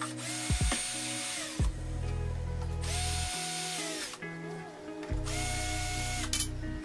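48V cordless drill running in three bursts of about a second each, its motor whine rising as it spins up and falling as it stops, over background music.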